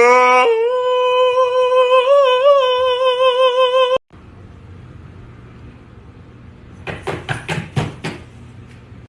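A voice singing one long held note that rises at the start, wavers briefly midway and cuts off abruptly after about four seconds. After it comes a quiet stretch with a few short noisy bursts near the end.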